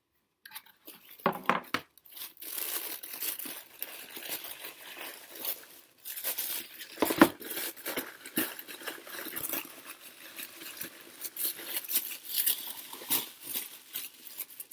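Tissue paper crinkling and rustling as a pair of shoes is unwrapped from a shoebox, with a few knocks, the loudest about seven seconds in.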